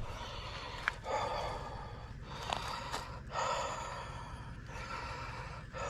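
A person breathing heavily and audibly close to the microphone, about five long breaths in a row with short pauses between them.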